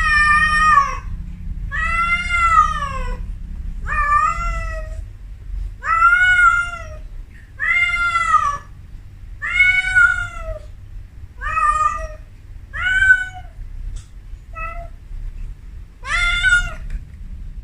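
Female Persian cat in heat calling: about ten drawn-out meows, each rising then falling in pitch, one every second or two. This is the mating call of a female in her first heat, calling for a male.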